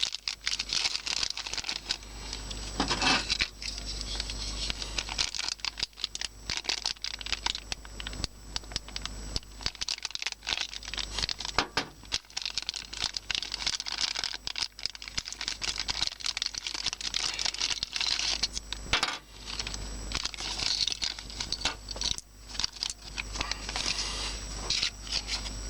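Toy packaging being handled and opened: a continuous crinkling and tearing with scattered clicks and taps.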